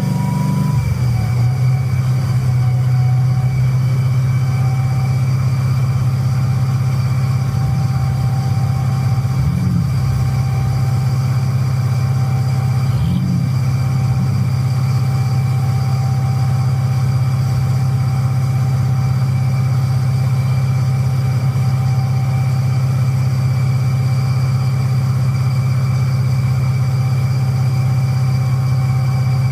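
1990 Corvette's V8 engine, fitted with headers, idling steadily during a smog test. It settles back from a brief rise in revs in the first second.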